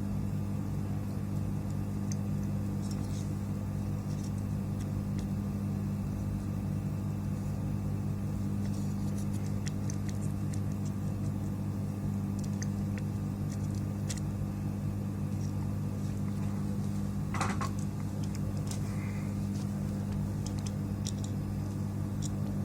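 Steady electrical hum of a hot-air rework station blowing while a chip and a MOSFET are desoldered from the Xbox Series X power supply board, with scattered faint light ticks of tools.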